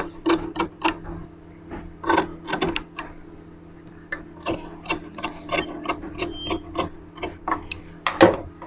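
Large tailor's scissors snipping through cloth in a quick, uneven series of short cuts as the seam allowance inside a stitched blouse neckline is trimmed.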